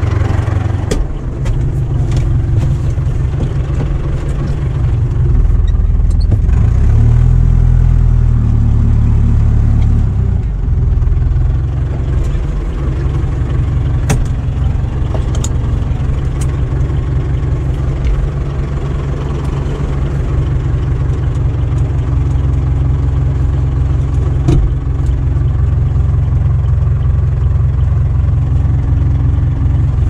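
Fendt tractor's diesel engine running with a heavy, steady low drone that grows louder for a few seconds from about five seconds in, with a few short sharp knocks over it later on.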